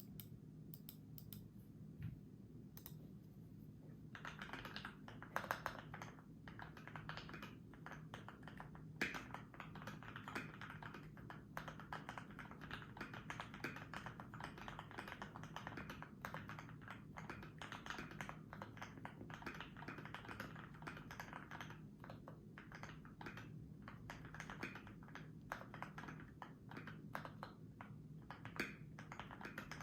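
Typing on a Keychron Q1 V1 mechanical keyboard with lubed, filmed Gateron Yellow linear switches, PBT keycaps and a polyfill-dampened case. A few scattered keystrokes come first, then steady, fast typing from about four seconds in.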